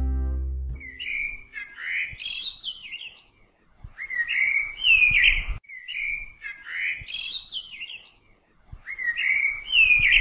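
Bird calls in four bursts of chattering, gliding whistled notes, separated by short silent gaps. A musical chord from the preceding music rings out and fades in the first second.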